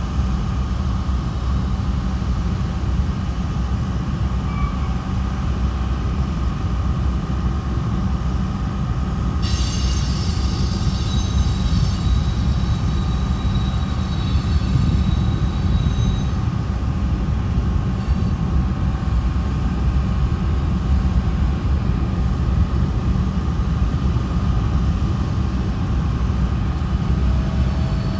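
Train of small covered hoppers rolling past, a steady heavy rumble of steel wheels on rail. About ten seconds in, a high wheel squeal sets in and fades away over the next several seconds.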